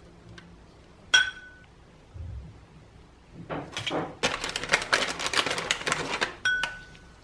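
A metal knife taps a small glass bowl about a second in, and the bowl rings briefly. Then comes a few seconds of dense crackling crinkle, like a plastic bag being handled, and a second ringing tap on the glass near the end.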